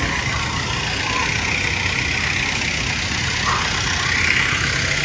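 Street traffic: vehicle engines running and driving past in a steady, continuous noise.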